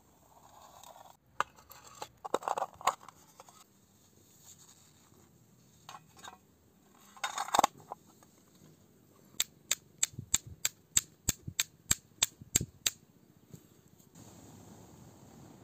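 Flint and steel striking: a run of about a dozen sharp, evenly spaced clicks, about four a second, as a steel striker hits a stone to throw sparks onto char cloth. Before that come scattered knocks and clatter.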